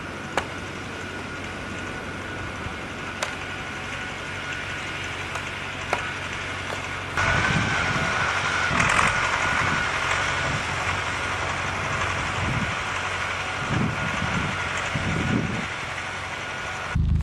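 A motor running steadily with a constant thin whine. It gets louder about seven seconds in, with irregular low thuds.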